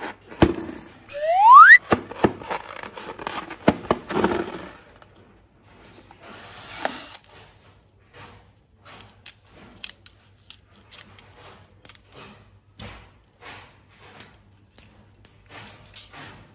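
Balloons and slime being handled: a short rising squeal about a second in, then a run of clicks and crackles that thins out into sparse small clicks.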